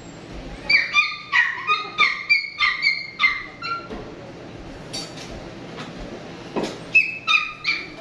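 A small dog yapping in quick, high-pitched barks: a run of about eight, then three more near the end.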